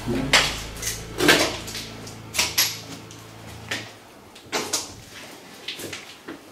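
Footsteps and clunks of people moving through an empty walk-in cold room: about eight sharp, separate knocks, the loudest in the first half, over a faint low hum that stops about four seconds in.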